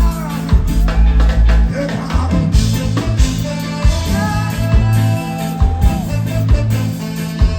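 Live reggae band playing with heavy bass, a singer's voice carrying a held, bending melody line over it.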